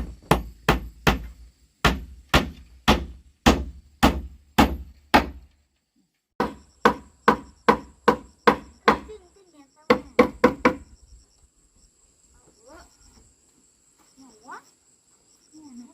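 Repeated hard blows, about three a second, in three runs: about fifteen, then after a short pause about eight more, then four. Faint voices and a faint high insect chirping follow.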